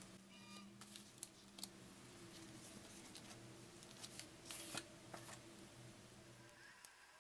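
Faint handling of a hardcover book and its cardboard slipcase: a few light taps and rustles, then a short scraping slide about four and a half seconds in as the book comes out of the case. A low steady hum sits underneath.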